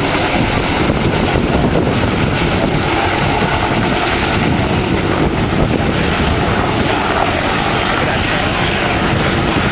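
Bell AH-1 Cobra attack helicopter flying overhead after takeoff, its main rotor chopping steadily over the whine of its turboshaft engine, loud and even throughout.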